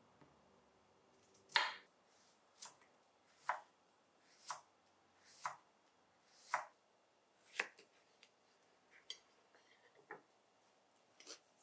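Kitchen knife slicing a cucumber on a wooden cutting board: seven crisp cuts about a second apart, each ending in a tap of the blade on the board, then a few fainter clicks.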